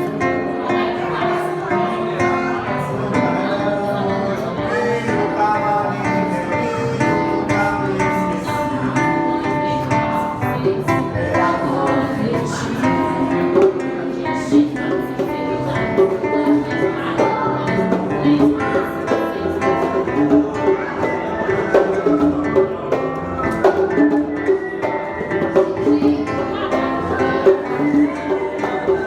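Live acoustic guitar playing, with bongo and conga hand drums beating along; the drum strikes grow more frequent about halfway through.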